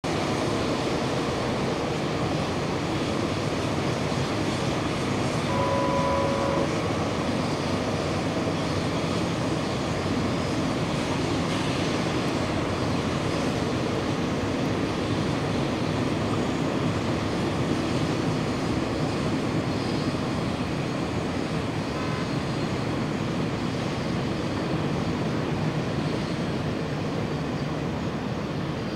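Passenger train hauled by an HXD3D electric locomotive running past, a steady rumble of wheels on the rails. A short steady tone sounds for about a second, about six seconds in.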